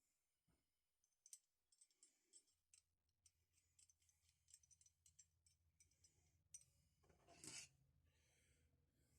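Faint rubbing and small clicks of a rag buffing excess beeswax polish off metal wrench parts, with one longer, louder rub about seven and a half seconds in.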